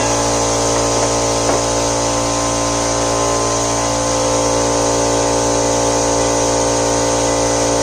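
Electric power tool spinning a cleaning wheel at a steady speed, stripping rust off a steel bracket; the motor's pitch holds level throughout.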